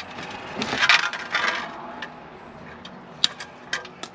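A white plastic eggcrate grid panel being handled: it scrapes and rattles against the concrete as it is lifted during the first second and a half, then gives a few sharp light clicks as it knocks against the edge of a plastic tub near the end.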